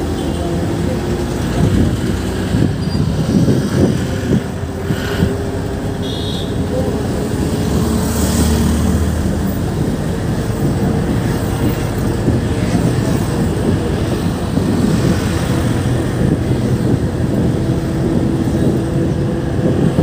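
Inside a moving bus: the bus's engine running and a steady road rumble, with a faint whine that drifts slowly up in pitch. There are a few rattling knocks in the first few seconds.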